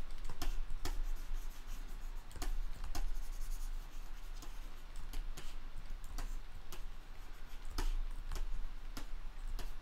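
About a dozen sharp clicks at irregular intervals from computer input devices worked during digital sculpting, over a steady low hum.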